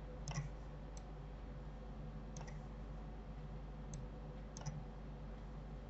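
About six faint, sharp computer mouse clicks at irregular spacing, two of them close together near the end, over a low steady hum.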